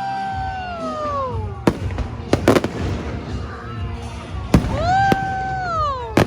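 Fireworks going off: two long whistles that hold their pitch and then fall, and several sharp bangs of bursting shells.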